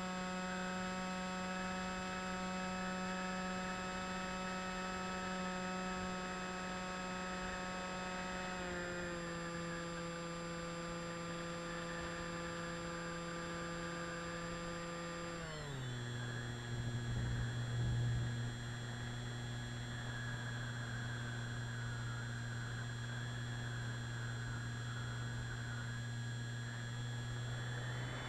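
Electric motor and propeller whine of an FPV radio-controlled aircraft, heard from the onboard camera: a steady hum whose pitch steps down a little about nine seconds in, then drops sharply about fifteen seconds in and holds lower as the motor speed is cut back.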